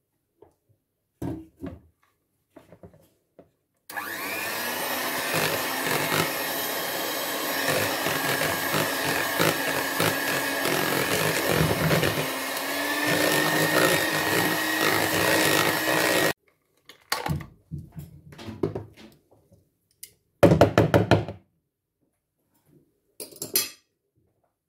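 Electric hand mixer running for about twelve seconds, beating egg yolks into whipped egg whites in a bowl; its motor whine steps up slightly in pitch partway through, then cuts off. A few short knocks and clatters follow.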